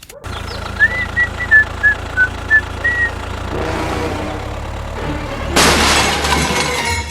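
A low, steady engine rumble with a string of short high chirps over it in the first three seconds. About five and a half seconds in comes a loud crashing burst, like something breaking, lasting about a second and a half.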